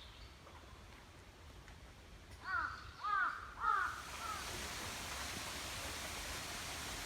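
A crow cawing three times in quick succession about halfway through, each caw a harsh arched call. Just after, a steady rushing hiss sets in and holds.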